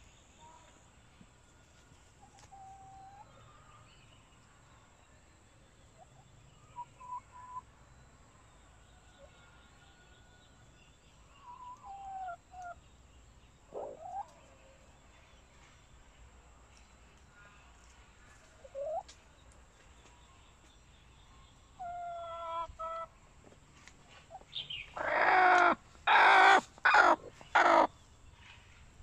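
Hens making short, scattered quiet calls, then a run of five or six loud, harsh squawks close together near the end.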